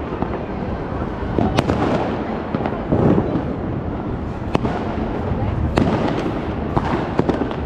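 New Year fireworks and firecrackers going off all around: a constant din of overlapping bangs and crackle, with sharper single reports every second or two.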